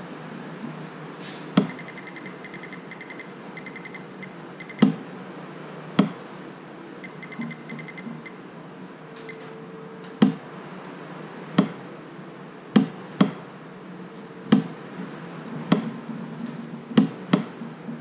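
Fluke 87 digital multimeter in record mode giving two runs of rapid high-pitched beeps as it logs new low battery voltages, among about a dozen sharp clicks while the Honda ATV is tried. No engine or starter cranking is heard: the ATV won't start.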